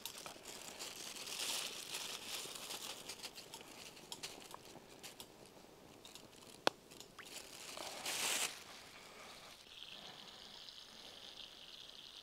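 Flour-coated fish frying in oil in a pan: crackling and spitting, a loud hiss about eight seconds in, then a steady sizzle from about ten seconds in.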